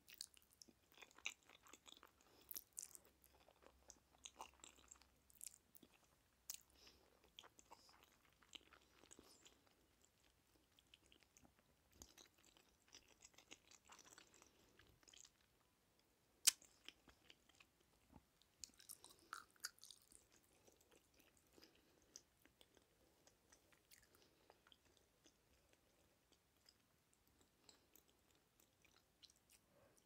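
Close-miked chewing of jajangmyeon noodles: soft, wet mouth sounds with scattered sharp clicks, the loudest single click about halfway through.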